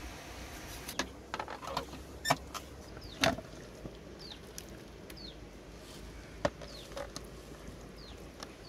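Scattered knocks and taps from handling a cleaver and plucked duck carcasses on a bamboo platform and woven tray, loudest a little over three seconds in. Under them is a steady outdoor background with a few short, high, falling bird chirps.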